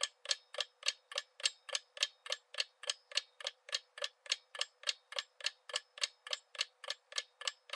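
Countdown-timer ticking sound effect: steady clock-like ticks, about three and a half a second, running down the thinking time.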